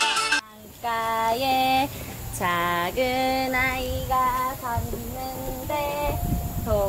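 A child singing alone without accompaniment: a string of held, wordless notes with short slides between them, over low rumbling noise.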